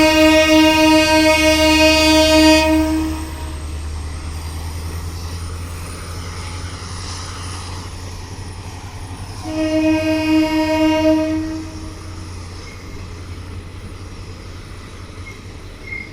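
Locomotive horn of a fast express train blowing two long steady blasts, the first ending about three seconds in and the second starting near the middle, over the steady low rumble of the running train.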